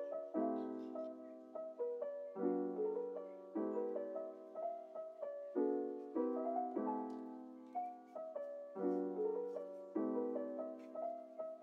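Background music: a gentle piano melody with chords struck about once a second, each note decaying.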